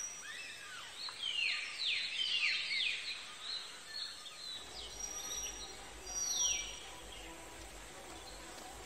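Birds calling: clusters of quick downward-sweeping chirps, several in a row during the first few seconds and again about six seconds in, over steady outdoor background noise.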